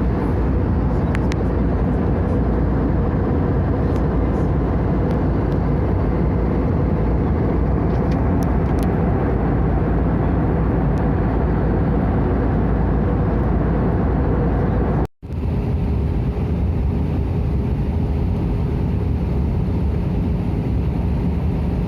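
Steady cabin noise inside an Airbus A320 in flight: engine and airflow noise with a faint steady hum, and a few faint clicks. It cuts out for an instant about fifteen seconds in, then carries on slightly duller.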